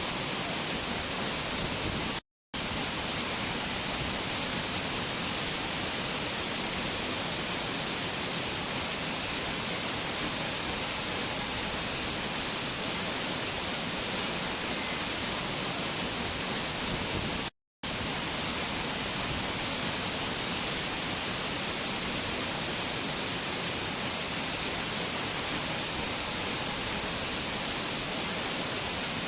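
Waterfall cascade rushing in a steady, hiss-like wash of falling water, cut off twice by brief gaps of silence, about two seconds in and near eighteen seconds in.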